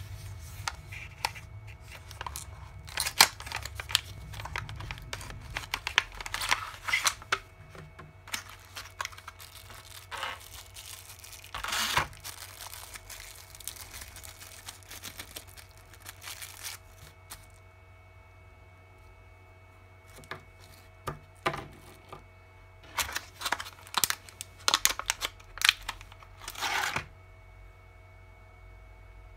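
Clear plastic blister packaging and a small plastic parts bag crinkling and crackling as they are handled and opened. The sound comes in irregular bursts with pauses, and it is quiet near the end.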